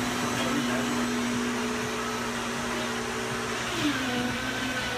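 Drink blender running behind a shop counter: a steady motor whine over a rushing noise, its pitch dropping slightly about four seconds in.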